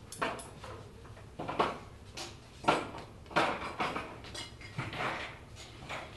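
Serving tongs and spoons clinking and clattering against salad-bar pans and plates as food is dished out: a string of separate short clatters, a little under one a second.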